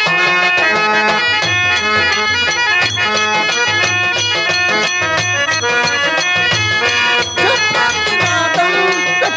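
Traditional folk music: a sustained melody over a steady double-headed drum beat, with sharp metallic strokes about three times a second.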